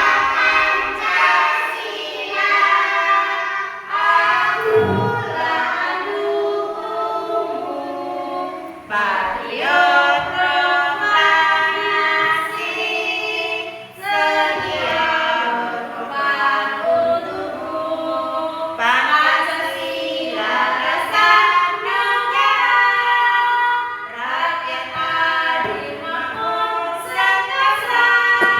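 A group of children singing together in unison, with a woman's voice among them, in continuous phrases that break briefly every few seconds.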